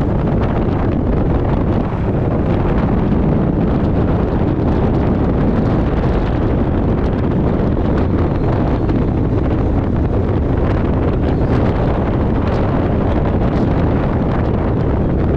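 Strong wind blasting across the microphone of a moving Yamaha Majesty 400 scooter, a steady loud rush with the scooter's running and road noise underneath.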